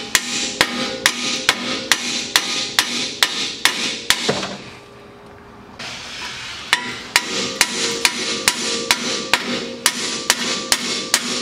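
Hammer striking the front steering knuckle of a BMW E36 to knock a stuck outer tie rod end out of it: a steady run of ringing metal blows, about two to three a second, with a pause of about two seconds midway.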